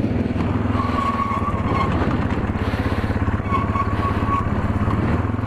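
A sport ATV's engine running at a steady, even throttle on a trail ride. A faint high whine comes and goes twice.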